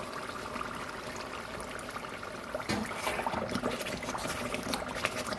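Tomato stew bubbling and sizzling in a pot, a steady fine crackle, with a few sharper clicks from about three seconds in.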